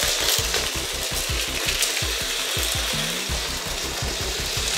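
Electric motors of a motorised Lego train whirring steadily as it runs along plastic Lego track, with its wheels rattling and clicking rapidly over the track joints.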